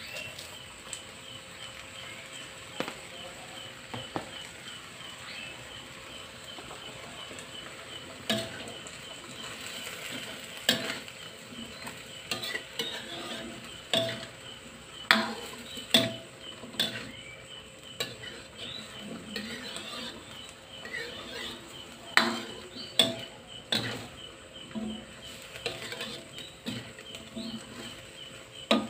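Metal spatula scraping and knocking against a wok as sliced luffa, tofu and long beans are stir-fried, over a steady sizzle. The strokes begin about a third of the way in and then come roughly once a second.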